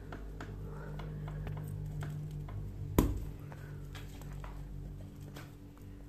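Quiet handling of soft paratha dough, with scattered light clicks and one sharp knock about three seconds in, over a steady low hum.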